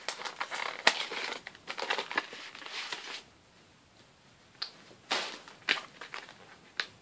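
Paper envelope crinkling and rustling as it is opened and a thick birthday card pulled out: a run of crackles and clicks for about three seconds, then a short pause, then a few more rustles near the end.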